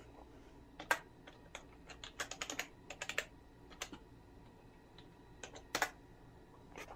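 Computer keyboard keys pressed to type in a password: scattered key taps, a quick run of them a couple of seconds in, and a louder single press near the end.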